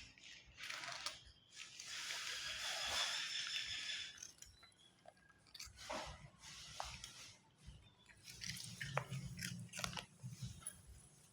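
A person eating a snack close to the microphone: bouts of crunching and chewing, with the densest crunching about two to four seconds in and scattered crisp clicks after it.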